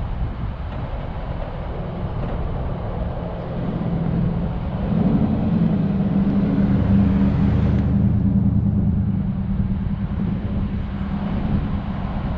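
Wind rumbling on the microphone, with a vehicle's engine hum coming in about five seconds in as it drives past, loudest soon after and then fading.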